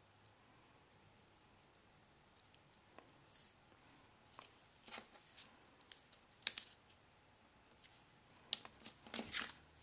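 Faint, scattered clicks and rustles of paper pieces being handled and pressed by hand onto a card. Quiet for the first couple of seconds, busier near the end.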